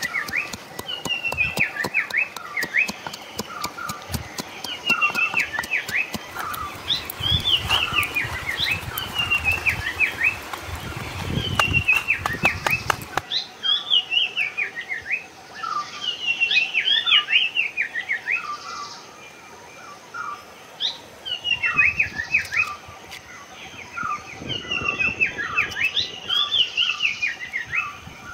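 A songbird singing the same short, falling, chirpy phrase over and over, every second or two. In the first half a wooden pestle knocks in a wooden mortar as it pounds green chillies.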